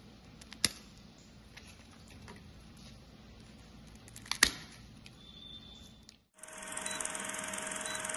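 Crisp fried papdi snapping and crackling as they are broken by hand, with one sharp snap about half a second in and a louder one about four and a half seconds in. About six seconds in this cuts to a steady old-film-projector whirr with a constant hum, the countdown-leader sound effect.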